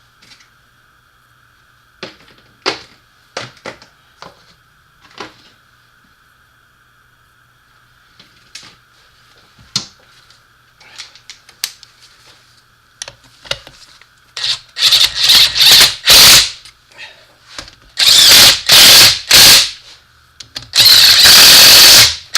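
Power tool running in short, very loud bursts, driving in the bolts on an NP247 transfer case housing, after a run of light clicks and knocks from handling parts and tools.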